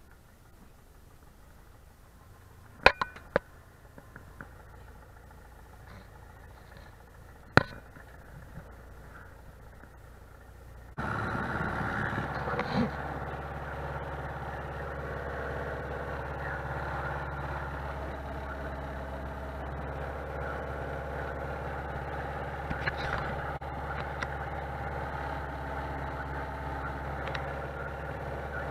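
A few sharp clicks in the cockpit, then about eleven seconds in the small plane's piston engine catches suddenly and runs steadily at idle.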